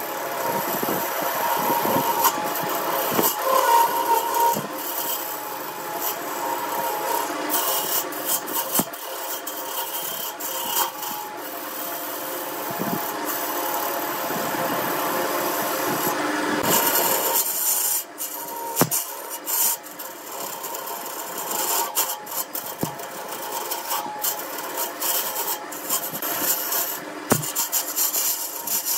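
Turning tool cutting a spinning blank of blue epoxy resin and wood on a Burt wood lathe, peeling off long ribbon shavings: a steady scraping hiss over the lathe's running, with a few sharp ticks. The cut briefly lets up about two-thirds of the way through.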